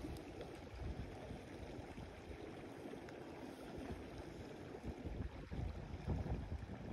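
Wind buffeting the microphone outdoors by the water, a low uneven rumble that gets gustier about five seconds in.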